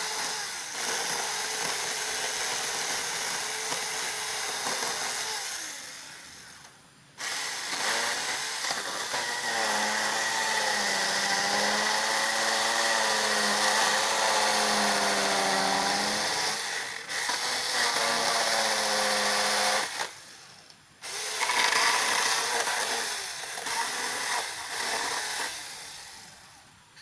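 Bull cordless mini chainsaw running in three long runs, each trailing off as the motor spins down, cutting through water apple tree branches; in the middle run the motor pitch wavers up and down as the chain bites into the wood.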